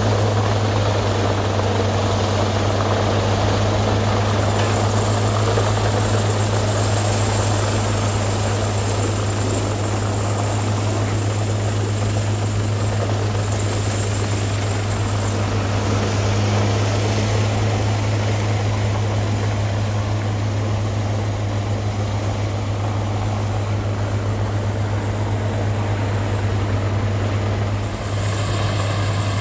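Peterson 5900E horizontal wood grinder running at work, a loud, steady low drone with a dense mechanical roar on top. The sound dips briefly and shifts near the end.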